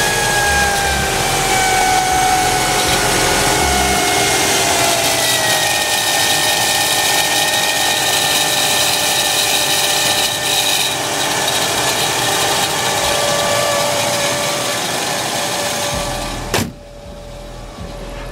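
Worn alternator bearings on a running 1989 Lincoln making a loud, steady grinding whine, with several tones that sag slightly in pitch in the first few seconds. Near the end the loud noise cuts off abruptly after a click.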